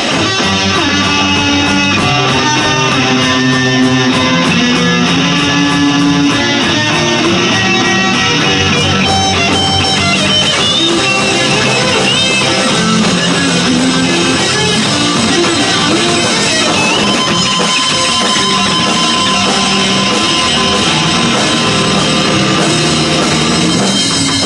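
Live rock band playing through the club PA: electric guitars, electric bass and drum kit.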